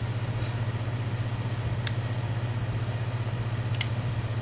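A steady low machine hum with a fast flutter, and a couple of faint clicks about two seconds and nearly four seconds in.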